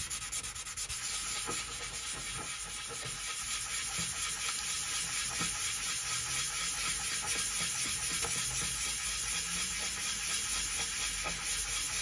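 A model lifeboat being hand wet-sanded in circles on an 800-grit abrasive disc: a steady scratchy rubbing of the hull on the wet paper.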